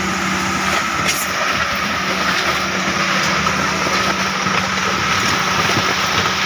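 Concrete pan mixer running steadily, its motor humming while the rotating paddles churn a gravelly paver concrete mix.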